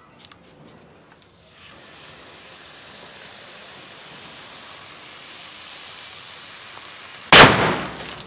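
Lumps of sodium metal dropped into water with a few faint ticks, then hissing and fizzing as they react on the surface, the hiss building steadily. About seven seconds in, one loud bang as the sodium–water reaction explodes.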